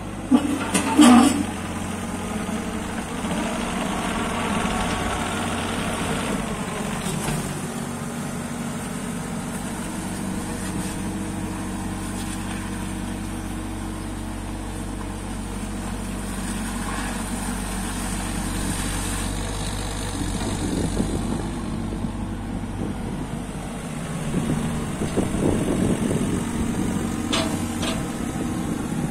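JCB 8026 mini excavator's diesel engine running steadily as the machine moves on its rubber tracks and works its boom and bucket hydraulics. A couple of loud clanks come about a second in, and another sharp knock near the end.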